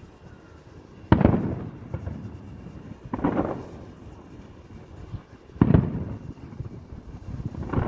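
Fireworks shells bursting: four booms about two seconds apart. The ones about a second in and past the middle are sharp bangs, the other two are softer, and each dies away in a short rumbling echo.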